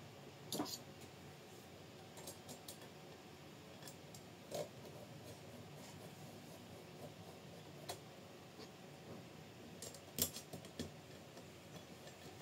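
Scattered light clicks and taps of small parts, screws and a hand tool being handled during assembly of a scale-model crawler chassis kit, with the sharpest clicks about half a second in and about ten seconds in, over a faint room hiss.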